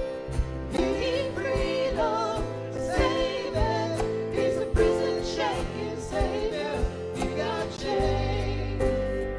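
Praise band playing a contemporary worship song, with a sung vocal line over guitar, bass and drums keeping a steady beat.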